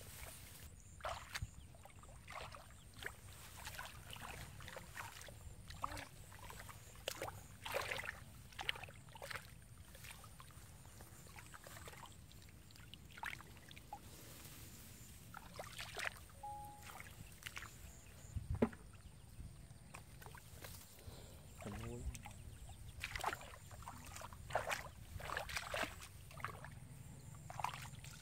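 Water splashing and sloshing in short splashes at irregular intervals, as hands or legs move through the shallow water of a flooded rice field, over a low steady rumble.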